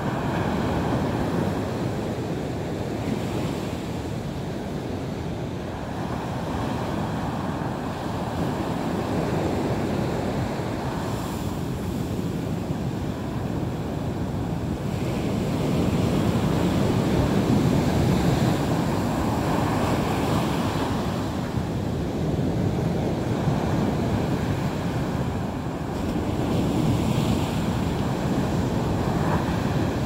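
Sea waves breaking and washing onto the shore: a continuous rush of surf that swells louder about halfway through and again near the end.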